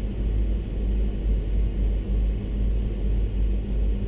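Steady low rumble and drone of a 1980 Chevy C30 rollback truck on the move, its swapped-in 8.1 L Vortec 8100 V8 running under a constant hum.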